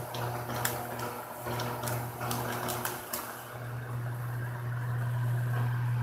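Plastic bag of shredded mozzarella crinkling in a string of sharp crackles over the first three seconds as a hand digs into it. Underneath, a steady low hum, which grows louder in the second half.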